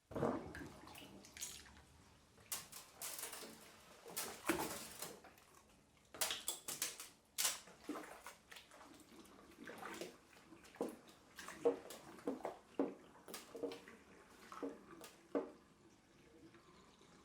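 Dishes and kitchen utensils being washed by hand in a sink: irregular water splashing with clinks and knocks of crockery and cutlery, quieter near the end.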